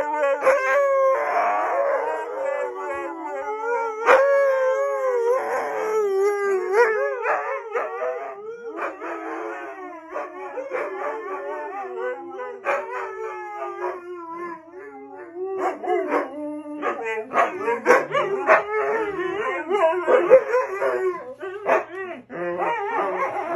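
Several Siberian huskies howling together, long wavering howls that rise and fall in pitch. Past the halfway point the howls turn shorter and choppier.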